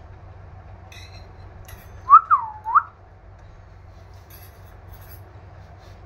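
A short pure whistle about two seconds in: a quick rise in pitch, then a swoop down and back up, all in well under a second, with a few faint clicks around it.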